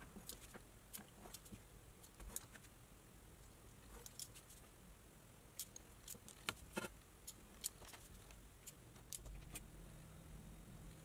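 Faint, irregular clicks and scratches of a utility knife drawn along a steel ruler, cutting through a soft sheet on a plastic cutting board.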